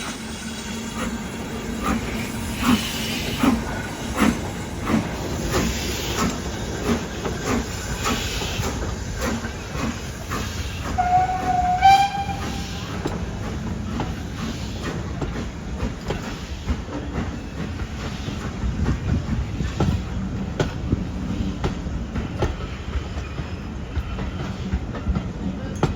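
BR Standard Class 4 steam locomotive 75069 working hard, its exhaust beats coming closer together as it gathers speed. Its whistle sounds once, for about a second, around the middle. After that the train runs on as a steady rumble with rapid wheel clicks.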